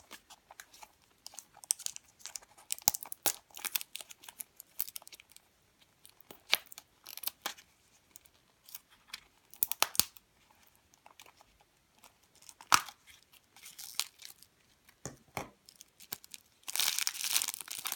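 Plastic packaging being handled and unwrapped: scattered crinkles, tearing and small clicks, with a dense spell of crinkling near the end.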